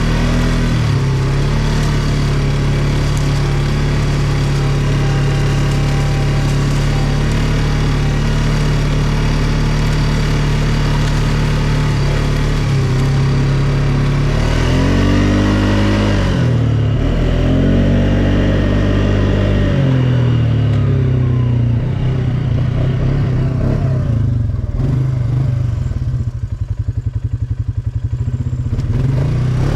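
ATV engine running steadily. About halfway through its pitch rises and falls twice as the throttle is worked, and then it settles into a lower, pulsing run near the end.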